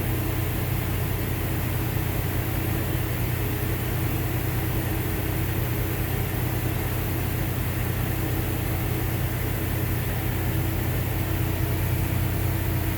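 A machine running steadily: a constant low hum with a steady higher tone and a hiss over it.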